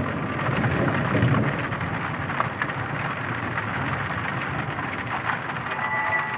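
Dark horror ambience: a steady rain-like hiss with fine crackle and a low rumble that fades over the first second or two.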